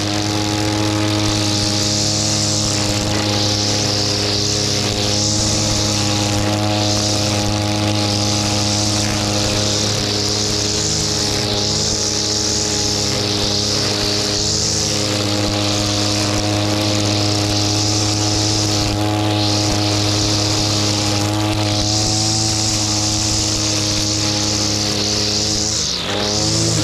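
Shindaiwa petrol brushcutter running at steady high revs, its nylon line cutting grass with a fluctuating hiss. Near the end the revs drop briefly and then pick back up.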